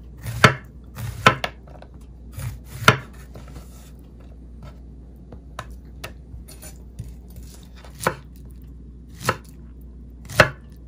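Chef's knife slicing through star fruit and knocking onto a wooden cutting board: several sharp knocks in the first three seconds, then fainter scattered ones, and louder single cuts about once a second near the end as pineapple is sliced.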